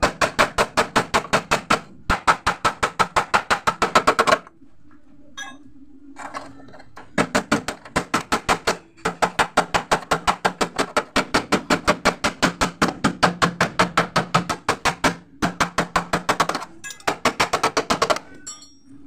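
Rapid, even tapping of a metal tool on the sheet metal of a Mitsubishi L300 van door, about five taps a second in several long runs with short pauses: paintless dent repair, working the dent out from inside the door with a rod through a small hole.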